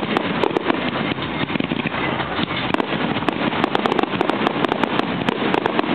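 Fireworks going off: a dense, continuous barrage of bangs and crackling.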